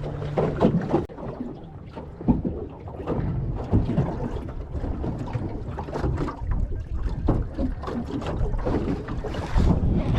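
Wind buffeting the microphone on a small fishing boat, a steady low rumble broken by a few sharp knocks, the loudest about two seconds in.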